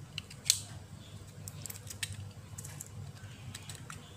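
Small clicks and taps of a thin metal tool prying at the sub-board and plastic frame of an Oppo F5 smartphone, releasing its latch; one sharper click about half a second in, then a run of lighter ticks.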